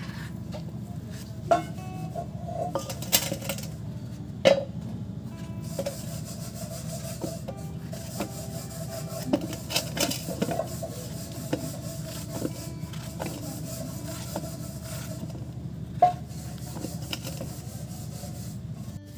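Kitchen knife cutting through a peeled bottle gourd held over a stainless-steel bowl: repeated scraping cuts with a handful of sharp knocks, over a steady low hum.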